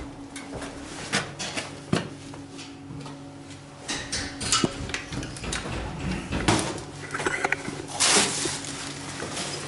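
Irregular knocks, clicks and rustles of footsteps and handling as a camera is carried on foot, with a louder rustling burst about eight seconds in, over a steady low hum.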